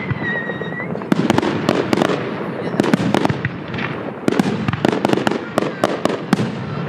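Fireworks display: a dense, irregular run of sharp bangs and crackling bursts, with a short high whistle in the first second.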